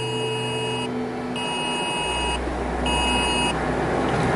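Emergency alert tone for a tornado warning sounding in three pulses, one long then two short, that end about three and a half seconds in. Under it runs the steady rumble of a moving truck's cab, which gets deeper and louder about halfway through.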